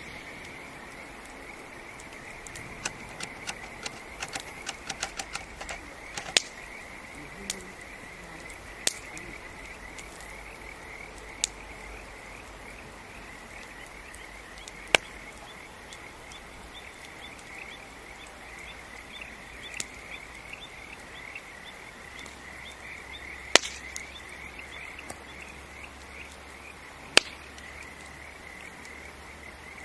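Wood campfire crackling, with a quick run of small pops a few seconds in and then single sharp pops every few seconds. Behind it, a steady chorus of chirping insects.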